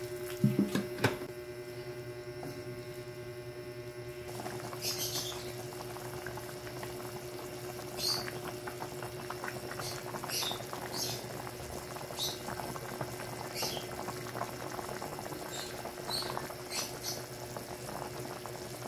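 Vegetable and chicken broth boiling in a large wok: a steady bubbling with scattered sharp pops, building up about four seconds in. Hot water from a thermos is being poured in at the start, with a couple of knocks.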